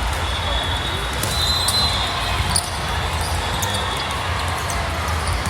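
Volleyball gym din: a steady wash of crowd noise with scattered sharp ball impacts from play.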